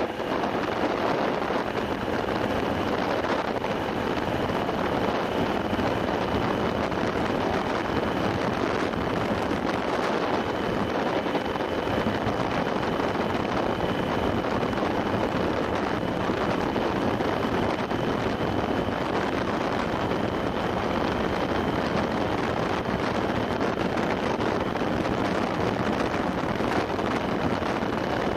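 Wind rushing over the microphone of a camera on a motorcycle cruising at about 45 mph, with the bike's engine running steadily underneath and a faint steady high whine.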